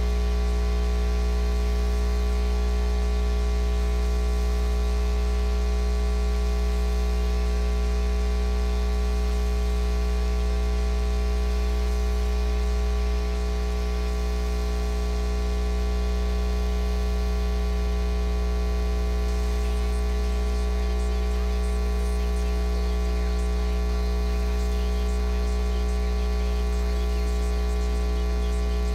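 Steady electrical mains hum, a low drone with a buzzy stack of overtones, unchanging throughout. It drops slightly in level a little under halfway through, and faint static crackle comes in during the last third.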